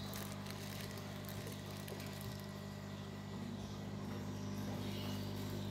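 Steady low electrical hum of an aquarium pump running.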